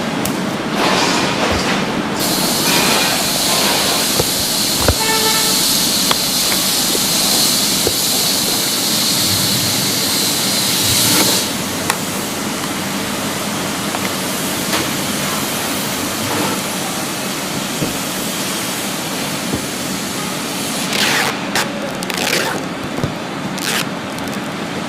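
Steady machinery noise in a workshop, with a loud hiss that starts about two seconds in and cuts off abruptly some nine seconds later. Scattered light clicks and knocks run through it.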